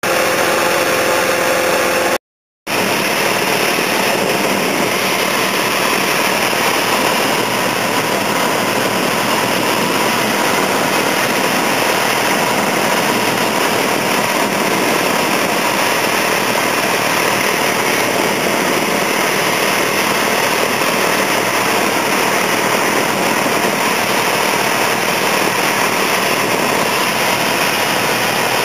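Light aircraft engine and propeller running steadily, heard from inside the cabin on final approach. The sound cuts out completely for a moment about two seconds in.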